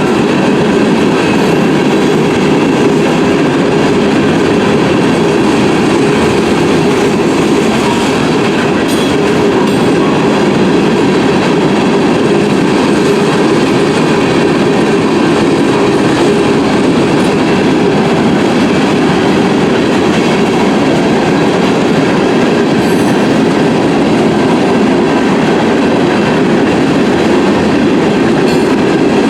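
Freight train cars rolling past a level crossing, a loud, steady rumble and clatter of steel wheels on the rails.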